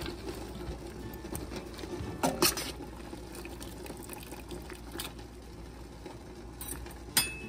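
Pot of squash relish in a vinegar-and-sugar brine bubbling at a boil, a steady low simmering sound, with a few short knocks about two seconds in and near the end.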